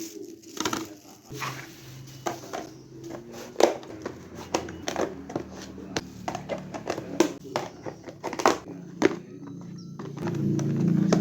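Groceries in plastic bags and containers being handled and put into a refrigerator: a run of short knocks, clicks and rustles. Soft background music plays under them, and the sound gets louder near the end.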